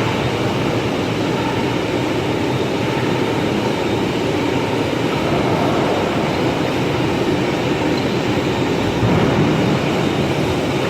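Concrete floor grinder running steadily over a concrete slab.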